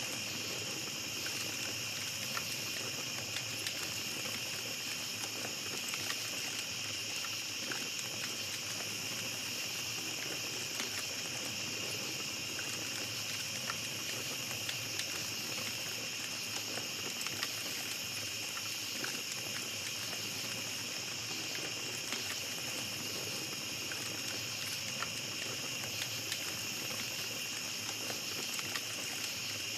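Small campfire crackling, with scattered sharp pops and snaps, over a steady high chorus of night insects.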